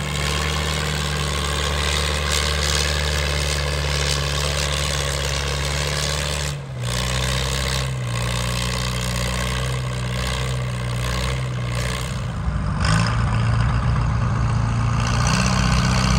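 Antique Farmall M tractor's four-cylinder engine running steadily at idle while hooked to a pulling sled. Near the end a tractor engine pulling a sled takes over, louder and rougher.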